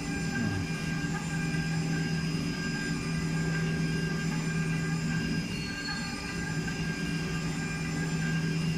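Desktop CNC milling machine's 1.5 kW high-speed spindle running while its cutter mills a metal block under coolant mist: a steady machine whine made of several held tones over a hiss. The low hum beneath it drops away for a moment a little past the middle, then comes back.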